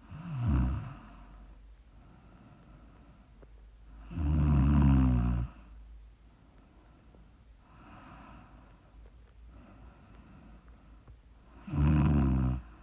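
Snoring: three loud snores a few seconds apart, the middle one the longest at over a second. Softer breaths come in between.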